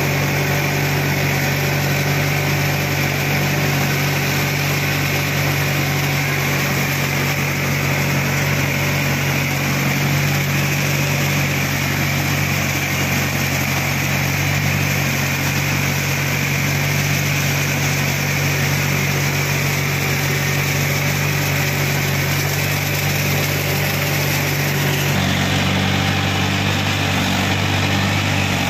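Mahindra 415 DI tractor's four-cylinder diesel engine running steadily while driving a Gyrovator rotary tiller through grassy soil. About 25 seconds in the engine note steps slightly higher.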